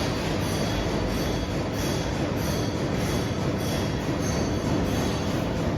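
Steady din of factory machinery on a workshop floor, with faint high squeals coming back about every half second.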